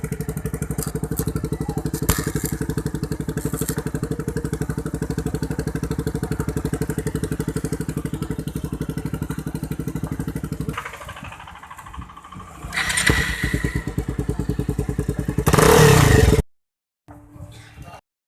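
Bajaj Pulsar 220F's single-cylinder engine idling through a newly fitted aftermarket exhaust, a steady, even beat of exhaust pulses. About eleven seconds in it drops away and goes quieter, then come two short, louder bursts, the second cutting off suddenly.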